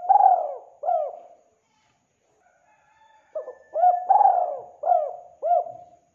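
Spotted dove cooing: a phrase of arched coos that ends about a second and a half in, then, after a pause, a second phrase of about five coos.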